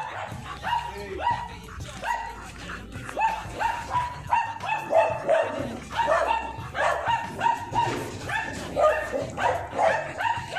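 A dog barking and yelping over and over, about two to three short calls a second, with a low steady hum underneath.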